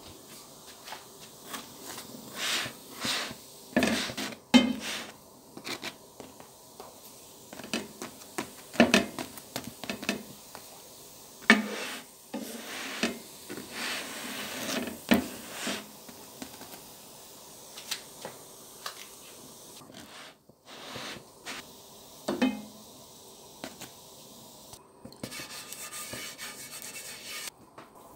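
Batbout flatbread being handled and turned in a dry non-stick frying pan: irregular scraping and rubbing against the pan, with scattered light knocks.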